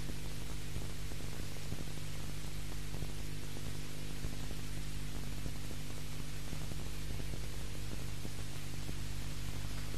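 Steady electrical hum with an even hiss and nothing else: the noise floor of an old VHS recording off a TV broadcast.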